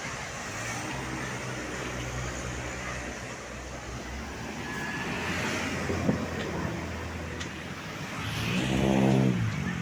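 Road traffic with tour bus engines passing. A louder engine goes by about eight and a half to nine and a half seconds in.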